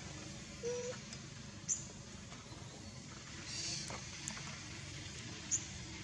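A few brief, high-pitched squeaky chirps from small animals, spaced a second or more apart, over a steady background hiss.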